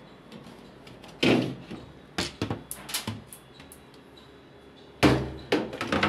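Top cover of an LG washing machine being slid back and lifted off: a loud knock about a second in, a rattle of smaller knocks a second later, and another loud knock near the end followed by more knocks and scrapes.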